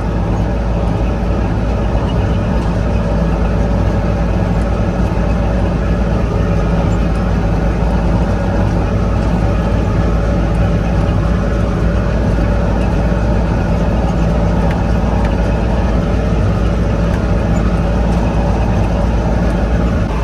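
A large vehicle engine running steadily, a loud, even low drone.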